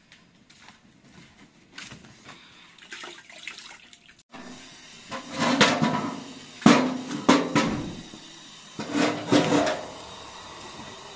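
A match is struck and the fire under a domed metal bread griddle is lit, giving several loud rushing bursts of noise from about halfway in. Before that, only faint handling sounds.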